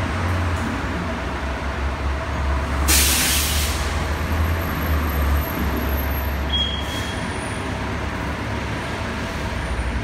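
Steady low rumble of traffic on a covered airport curbside roadway, with a bus's air brakes hissing for about a second, about three seconds in.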